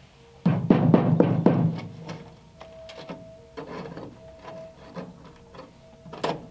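Rust-rotted steel of a 1939 Ford's roof rail and A-pillar seam being pressed and picked with a gloved hand. A loud burst of crunching and crackling from the rotten metal and rust flakes comes about half a second in, followed by scattered smaller clicks and one sharp crack near the end. Faint background music with held notes plays underneath.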